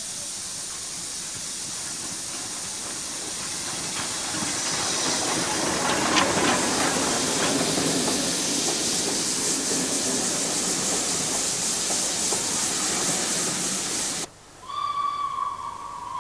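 Steam locomotive hissing steadily with escaping steam, growing louder partway through. Near the end the hiss cuts off abruptly and a steam whistle starts to blow.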